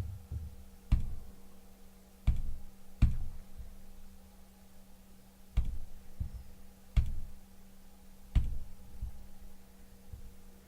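A series of six sharp knocks, each with a low thump, spaced one to two and a half seconds apart, like objects being handled and set down on a table, over a steady low electrical hum.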